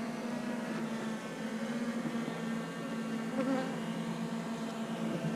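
Honeybees buzzing in a steady hum.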